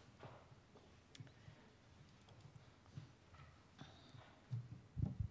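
Faint footsteps of heeled boots on a wooden floor, a slow series of soft knocks, with a couple of louder knocks near the end.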